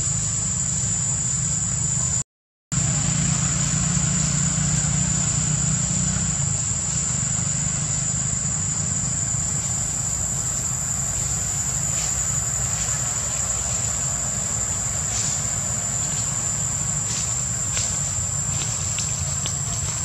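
Steady outdoor background noise: a low rumble under a constant high, thin tone. The sound cuts out for a moment about two seconds in, and a few faint clicks come in the second half.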